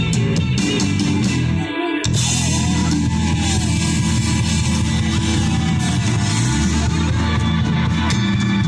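Live rock band playing an instrumental stretch: electric guitar over bass and drums. About two seconds in, the bass and drums drop out for a moment, then the full band and cymbals come back in.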